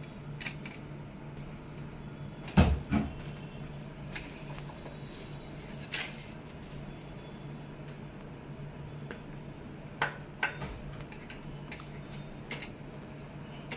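Scattered small knocks and clicks of epoxy tubes and tools being handled and set down on a hard work surface, the loudest about two and a half seconds in, over a steady low hum.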